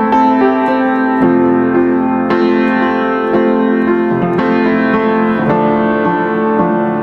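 Background piano music, a new chord struck about once a second and left to ring.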